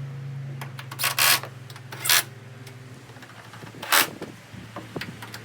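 Three short, loud bursts of a power driver tightening the fender screws, over a steady low hum.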